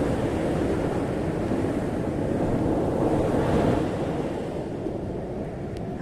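Ocean waves washing on a beach: a steady surf hiss that swells about halfway through and eases off toward the end.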